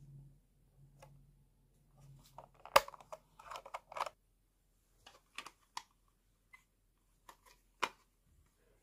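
Hard plastic being handled. There is a short rustle with one sharp click a little under three seconds in, then a handful of separate clicks and taps from a clear plastic cassette case turned in the hands.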